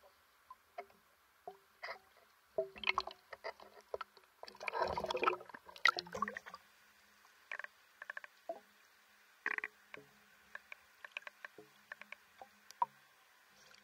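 Water splashing and sloshing at the surface as a swimmer goes under, with the loudest rush of water about five seconds in, then muffled underwater clicks and pops.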